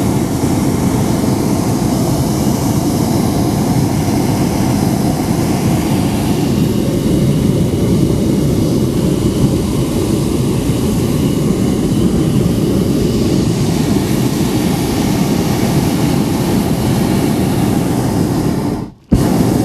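Hot air balloon's propane burner firing in a long continuous burn, a loud steady roar as it heats the envelope during inflation. It breaks off for a moment near the end.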